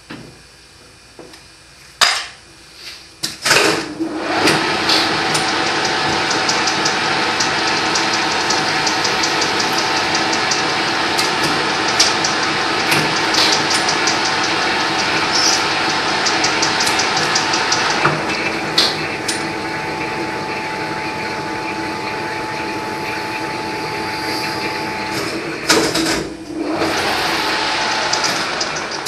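1943 Morey No. 2G turret lathe: a few clunks of levers and the turret being worked, then the lathe running steadily with a gear whine as it machines the acetal bar. The tone changes about two-thirds of the way through, and the running stops briefly near the end before starting again.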